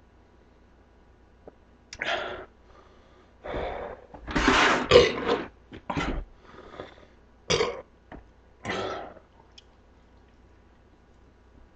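A man burping and clearing his throat in about six short bursts, the longest and loudest about halfway through: gas from the carbonated Sprite he is drinking on top of a full stomach.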